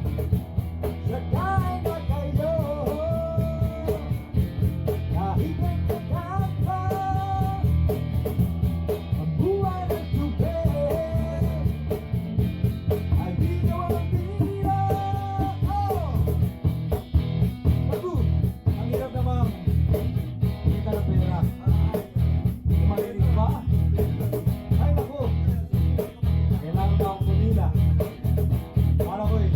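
Acoustic guitar strummed steadily in an informal jam, with a voice singing the melody along with it, the singing plainest in the first half.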